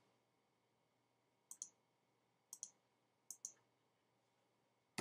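Faint computer mouse clicks over near silence: three short double ticks about a second apart, then a sharper single click at the end.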